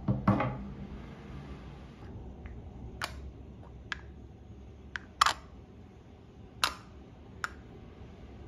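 A black wire fruit basket set down on a wooden table with a clunk. After it come six sharp, separate light clicks, spread over several seconds, as small chocolate-coated domes are picked up and set down on a granite countertop.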